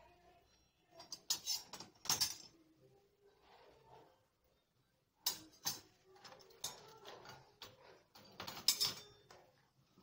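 Steel utensils and the wire dishwasher racks clinking and rattling as they are handled, in three short clusters of sharp clicks with quiet gaps between.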